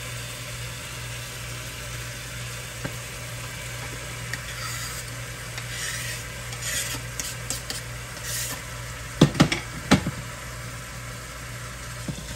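Ground turkey with chopped onion and green pepper sizzling steadily in olive oil in a pot on high heat while being stirred, with small clicks of the utensil and a few sharp knocks against the pot about nine to ten seconds in.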